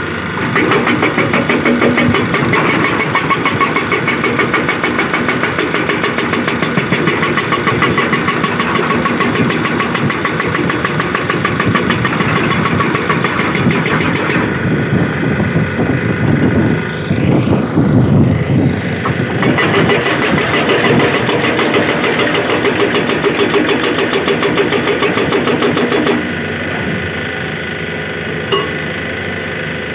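SHS 81 hydraulic rock breaker on an excavator hammering rock with rapid, continuous blows over the excavator's engine. The hammering stops about four seconds before the end, leaving the engine running.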